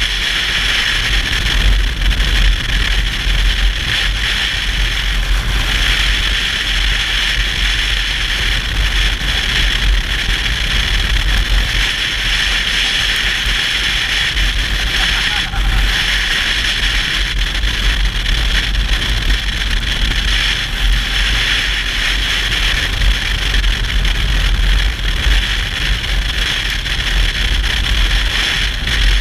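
A motorcycle on the move: steady wind rush over the microphone with a low engine and road rumble underneath.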